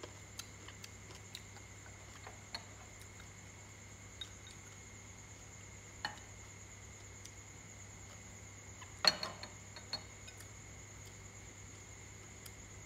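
Chopsticks clinking against ceramic and glass bowls while eating: scattered light clicks, the loudest about nine seconds in.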